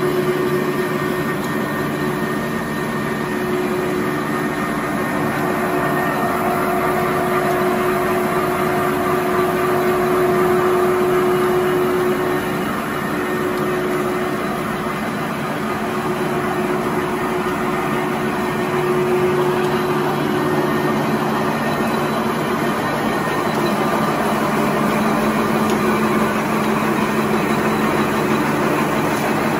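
Automatic glue-lamination napkin tissue machine running at production speed: a steady, dense machine noise from its motors and rollers, with a few held hum tones over it.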